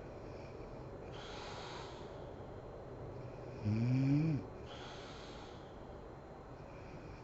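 A sleeping woman snoring and breathing heavily. There are hissy breaths about a second in and again near five seconds, and a loud voiced snore with an "mm" sound that rises in pitch about halfway through.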